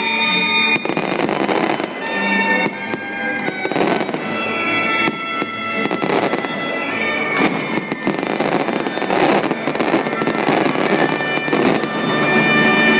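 Fireworks popping and crackling in quick succession, over music with long held notes.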